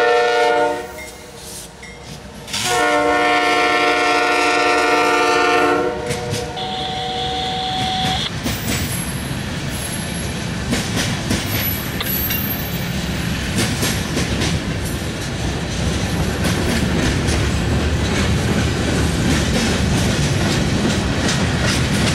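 Horn of a CSX GE diesel freight locomotive, a chord of several notes, sounded as a short blast ending about a second in and a longer blast of about three seconds. After it, a long freight train rolls past: a steady rumble with the clickety-clack of wheels over rail joints.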